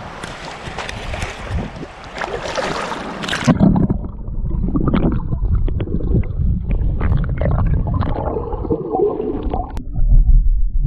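Seawater splashing and sloshing in the shallow surf as a leerfish is let go by hand. After about three and a half seconds the sound turns muffled and gurgling, with a low rumble.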